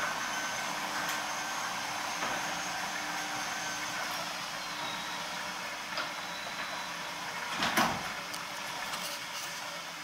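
Sectional garage door closing: a steady mechanical run, then a clatter and thump just before the end as the door reaches the floor and stops.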